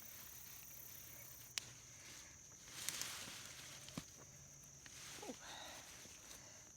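Faint garden ambience: a steady high insect drone, with a brief rustle of soil being handled about three seconds in and a couple of sharp clicks.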